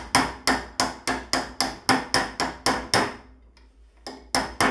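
Light, even hammer taps on a steel drift, about three a second, each with a short metallic ring, knocking the BMW E36 differential's side cover and its seal loose from the housing. The tapping stops for about a second, then resumes just before the end.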